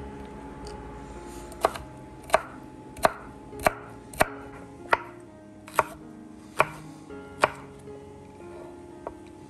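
Chef's knife chopping bell pepper on a wooden cutting board: a run of about nine sharp knocks, a little under a second apart, then a pause and one light knock near the end.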